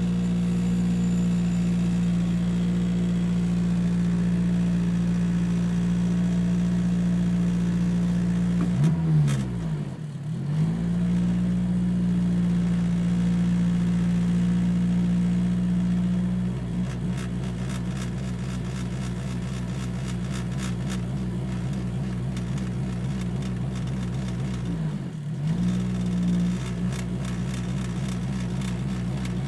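Acura RSX Type S's K20 2.0-litre four-cylinder idling loudly, with a rattle from something behind the rear-view mirror. The engine speed dips briefly and recovers about nine seconds in and again near the end. From about halfway the idle runs a little quieter and less even.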